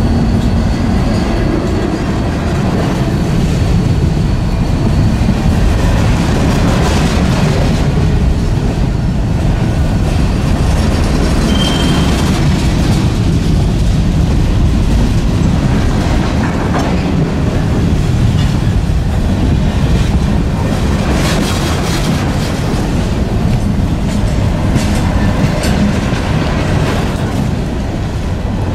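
A freight train's cars rolling past with a steady rumble and clickety-clack of wheels over the rail joints, and a short high wheel squeal about twelve seconds in.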